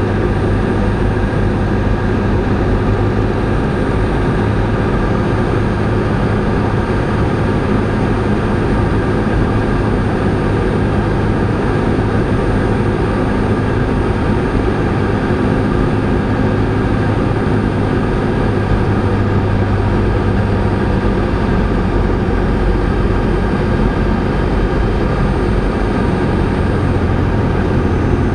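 Cessna 172R's four-cylinder Lycoming engine and propeller droning steadily in flight, heard inside the cabin.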